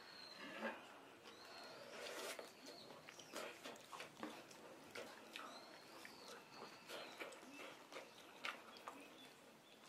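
Quiet eating sounds: chopsticks and a spoon stirring and lifting instant noodles in a paper ramen cup, with small clicks and soft slurps. A faint high whistling call that rises and falls is heard twice.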